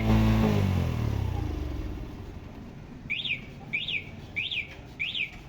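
A motorcycle engine's revs fall away and fade after a blip of the throttle. From about three seconds in come five short, identical chirps, each rising and falling in pitch, evenly spaced about half a second apart.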